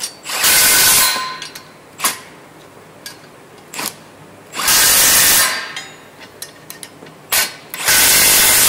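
Cordless impact wrench rattling nuts and bolts tight on a steel tow-hitch bracket, in three bursts of about a second each, with a few short clicks between.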